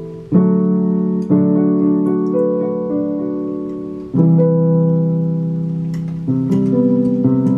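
Digital piano keyboard playing slow, held chords, each struck and left to fade before the next, with a few quicker notes near the end.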